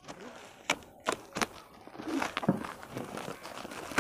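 A plastic courier mailer bag being slit with a knife and ripped open by hand: three sharp snaps of plastic about a second in, then crinkling and tearing as the bag is pulled apart.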